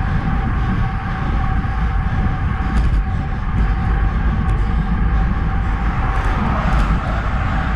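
Wind buffeting the microphone of a handlebar-mounted action camera, with tyre rolling noise, as a road bike is ridden at about 34 km/h on Roval Rapide CLX64 wheels. A steady thin whine runs under the rush.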